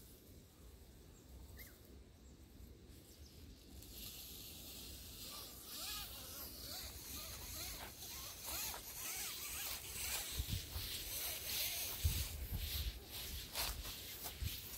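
Footsteps and rustling through grass and dry leaf litter, starting about four seconds in and growing louder, with scattered crackles and snaps.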